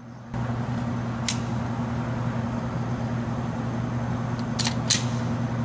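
Steady ventilation hum of an indoor shooting range, with a few short, sharp clicks of a pistol being handled at the bench: one about a second in and two close together near the end.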